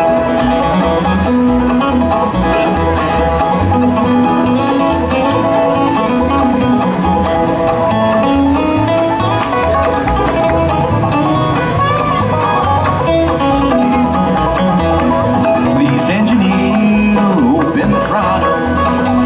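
Bluegrass band playing an instrumental break, with banjo, guitar and bass over a steady bass pulse.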